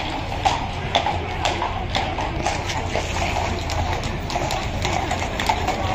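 Horses' hooves clip-clopping at a walk: sharp hoof strikes about twice a second over steady background noise.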